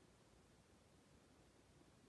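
Near silence: faint, steady room tone.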